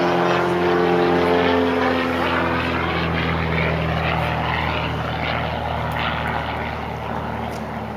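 Single-engine aerobatic propeller plane diving and making a low pass. Its engine holds a steady pitched drone for the first second or so, then turns into a rougher, shifting whir that slowly gets quieter.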